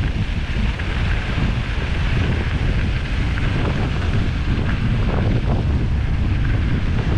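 Heavy wind buffeting the microphone of a camera on a mountain bike riding fast downhill, a steady low rumble. Under it, a steady hiss of knobby tyres rolling over loose gravel and dirt, with a few faint rattles.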